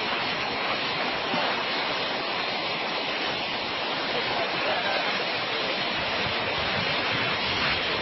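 Steady, even rushing noise with no rhythm or pitch.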